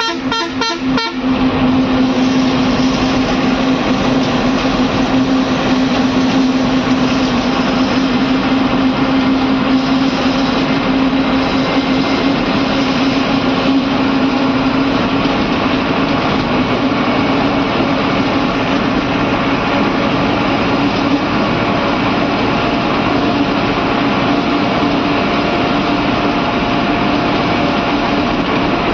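Bus engine running steadily while driving, heard from inside the driver's cab as a constant low drone over road and rattle noise. A rapidly pulsing horn sounds for about the first second, then stops.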